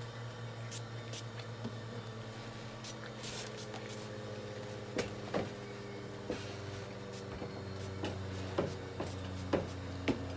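A hand spray bottle spritzed several times in quick, short shots during the second half, over a steady low electric hum.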